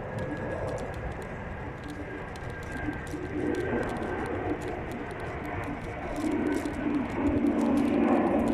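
Electric scooter riding along a forest track: a thin steady motor whine over the rumble and rattle of the wheels, with the whine fading about two-thirds of the way through. A lower, louder hum-like tone swells in near the end.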